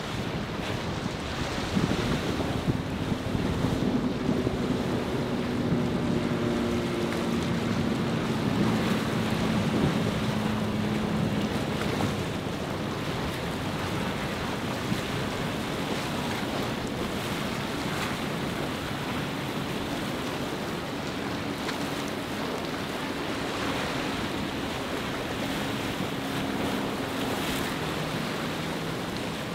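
Choppy surf and breaking wake with wind buffeting the microphone, under the low steady drone of a motor yacht's engines running past, the drone dropping slightly in pitch as it goes by.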